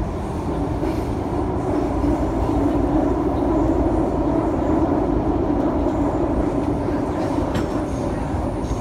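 Kwun Tong Line MTR train running between stations, heard from inside the passenger car: a steady rumble with a droning hum that swells louder through the middle and eases off near the end.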